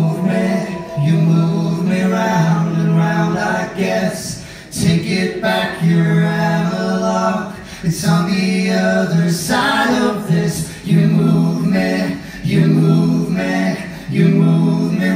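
Live band song dominated by singing in long held notes, with the singer's archtop guitar and an electric bass underneath.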